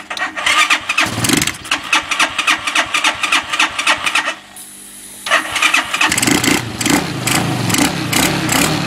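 Bashan 200cc quad bike engine being cranked over in rapid strokes: one attempt stops about four seconds in, and a second begins about a second later. On the second attempt the engine starts to fire and runs roughly. This is a hard-starting engine that the owner suspects has a dirty carburettor.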